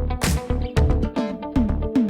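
Background music with a steady beat of drums and bass.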